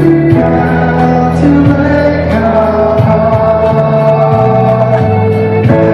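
A school alma mater sung by a large group with instrumental accompaniment: slow, held notes that move from chord to chord.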